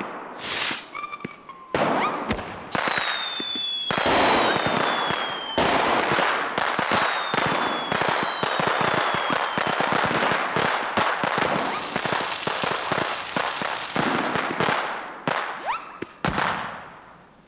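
Fireworks going off: sharp bangs build into a dense crackling barrage, with falling whistles from whistling fireworks a few seconds in, dying away near the end.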